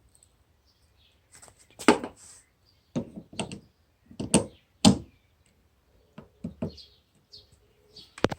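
Auxiliary light and its photo quick-release mount being handled and taken off: a series of separate knocks and clicks of hard parts, the loudest about two and five seconds in, and a sharp click near the end.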